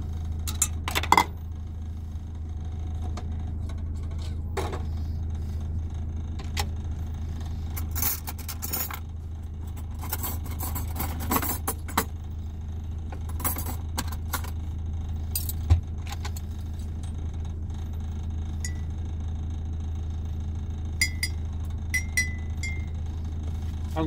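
Clinks, rattles and knocks of containers and small kitchen items being picked up and moved about on a shelf, scattered irregularly, over a steady low hum.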